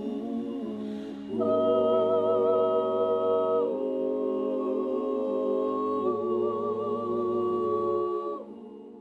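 A cappella choir singing slow, held chords that change every two seconds or so, with a wavering top voice, then fading out near the end.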